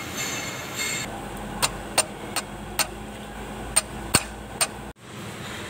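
Hard metal-on-metal clicks and taps as a tractor propeller shaft is handled and fitted: a brief squeal in the first second, then seven sharp, irregularly spaced clicks.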